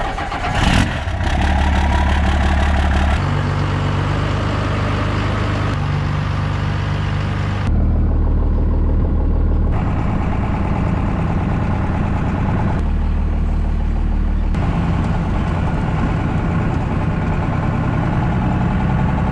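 Twin-turbo, P-pumped 12-valve Cummins diesel in a 1995 Ford F-150 running steadily through its large exhaust tip, then heard from inside the cab as the truck is driven slowly. The engine note shifts abruptly a few times.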